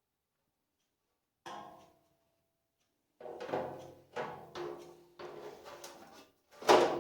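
Metal parts clanking as they are handled and fitted, one knock about a second and a half in and then a run of uneven knocks, each leaving a short metallic ring, with the loudest clank near the end.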